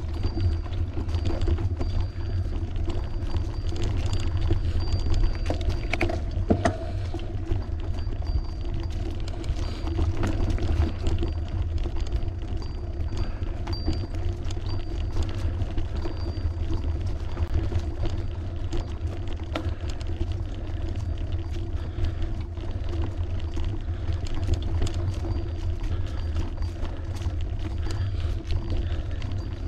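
Wind buffeting on the microphone and tyre rumble from a bicycle being ridden on the road, a steady low rumble throughout. A few short knocks come about six seconds in.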